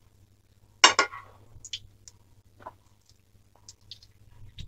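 Metal spoon clicking and scraping lightly against a non-stick frying pan while flipping shallow-fried moong dal bhallas: a handful of scattered light clicks, with one louder scrape about a second in.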